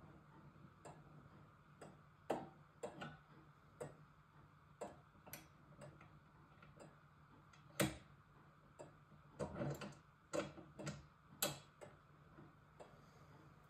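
Tekippe precision regulator clock's movement ticking about once a second, with louder, irregular clicks from the winding key and ratchet as the weight is wound up; the loudest click comes about eight seconds in.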